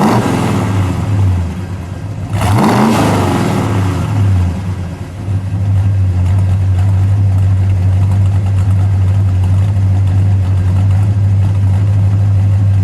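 1969 Dodge Charger R/T's factory 440 Magnum V8 revved in place: a rev dying back at the start, a second blip of the throttle about two and a half seconds in, then a steady idle.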